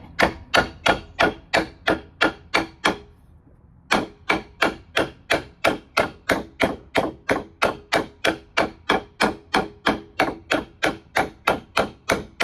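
Steel hammer tapping quickly along a score line on a flagstone slab, about four light strikes a second with a short break about three seconds in, each strike with a brief ring. The taps set up hairline fractures along the line so the stone will break cleanly there.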